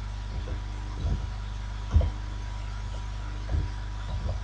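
Steady electrical hum with a handful of short, soft, low thumps from computer keyboard keystrokes as code is typed; the strongest comes about two seconds in.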